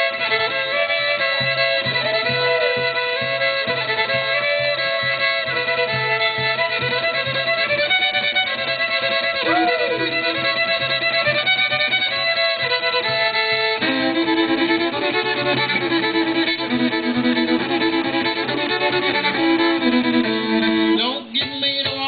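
Fiddle being bowed through a tune, sustained notes over a steady low hum; about two-thirds through, the melody drops into a lower register.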